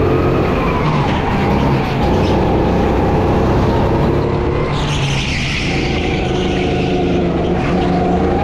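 Go-kart engine running hard, its pitch falling over the first couple of seconds as it slows and rising again near the end as it picks up speed. About five seconds in, a brief tyre skid hisses for about a second.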